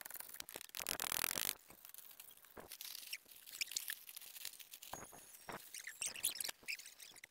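Handling noises from working with razor wire and fence hardware: rustling and scattered light clicks and scrapes, with a loud burst of rustling about a second in.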